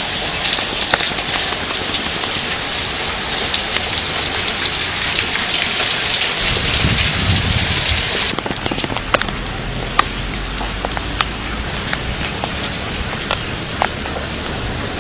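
Heavy rain and hail pouring down in a hailstorm, a dense steady hiss with sharp knocks from individual hailstones striking. A low rumble swells briefly at about seven seconds, and the hiss eases a little about eight seconds in.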